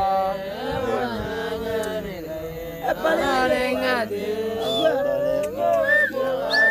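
Voices chanting a traditional Otuho (Lotuko) song in overlapping lines, with short high whistles near the end.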